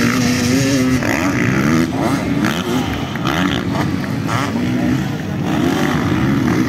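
Motocross dirt bikes racing, their engines revving up and down again and again as the riders take jumps and corners.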